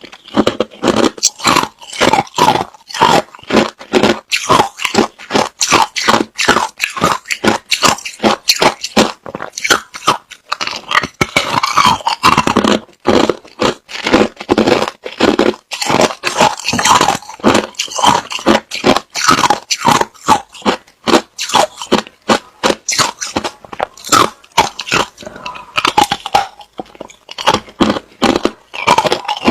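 A person biting and chewing hard crushed ice close to the microphone: rapid, loud crunching and cracking, several bites a second.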